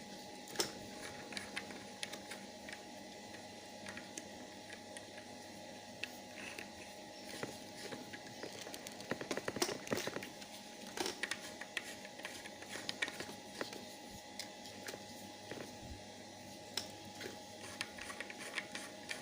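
Scattered small clicks, knocks and scraping of plastic parts being handled, as the high-pressure hose fitting is pushed into the pressure washer's spray gun; the handling is busiest in the middle stretch, over a faint steady hum.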